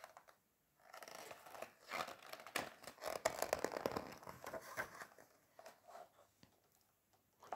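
A picture book's page being turned by hand: soft paper rustling and sliding for a few seconds, loudest about halfway through.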